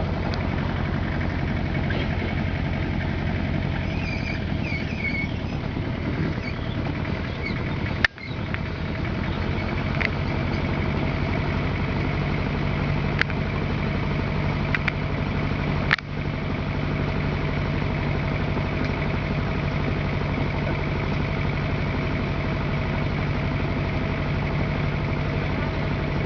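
An engine running steadily at idle, with a few sharp clicks over it and two brief dropouts about eight and sixteen seconds in.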